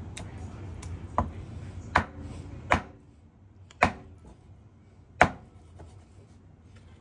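Chinese cleaver chopping through boneless cooked chicken onto a wooden cutting board: five sharp knocks at uneven intervals, the loudest near the end.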